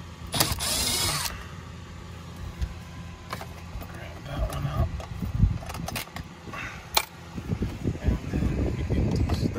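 Milwaukee cordless drill-driver on its lowest setting whirring for about a second to back out a 10 mm dash bolt. Scattered clicks and knocks of the socket and bolts being handled follow, over a steady low hum.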